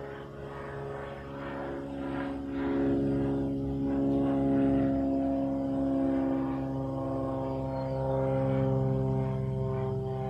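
Steady propeller hum from an aircraft, a droning tone with several overtones that drifts slightly in pitch and swells a little partway through.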